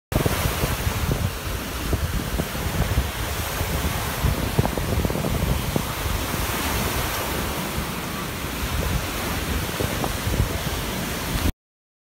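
Rough sea surf breaking and washing ashore, with wind buffeting the microphone in heavy, uneven low rumbles. The sound cuts off suddenly near the end.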